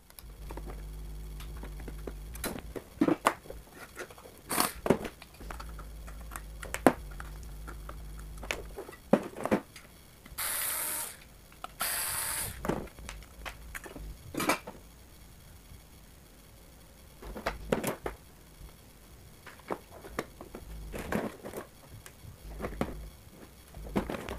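Cordless electric screwdriver whirring in two short bursts about ten seconds in, turning a screw that holds the amplifier board to its aluminium heatsink, among clicks and knocks of the board and heatsink being handled.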